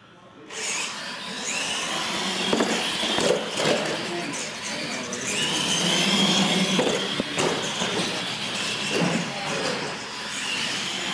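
Electric motors of radio-controlled monster trucks whining as they race across a concrete floor, rising in pitch three times as the trucks accelerate. Tyre noise runs underneath, with several sharp knocks.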